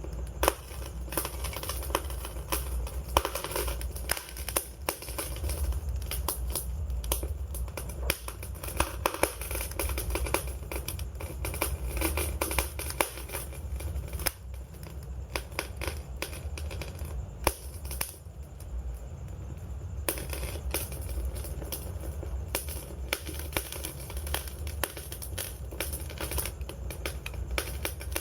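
Wood fire crackling, with dense, irregular sharp snaps and pops over a steady low rumble of burning.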